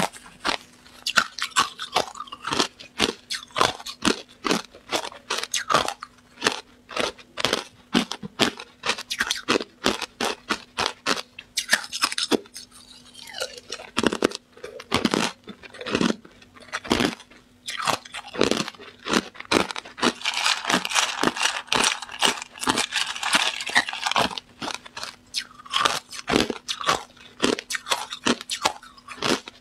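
Hard ice cubes being bitten and chewed close to a clip-on microphone: a fast, irregular run of sharp cracks and crunches, thickening into a denser grinding crunch about two-thirds of the way through.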